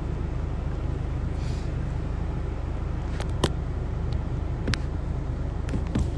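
Steady low rumble of a van's cabin, engine and road noise with no voices, with a few short sharp clicks, a couple of seconds apart, from the phone being handled.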